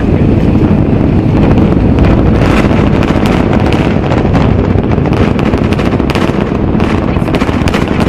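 SpaceX Super Heavy booster's Raptor rocket engines heard from about six miles away: a loud, continuous low rumble shot through with rapid crackling.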